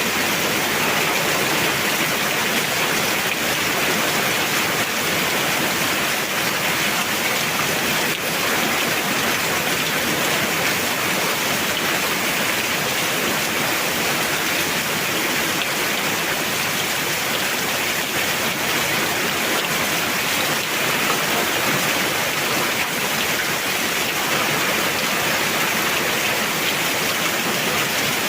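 Heavy rain pouring steadily, a dense even hiss of falling drops with no letup.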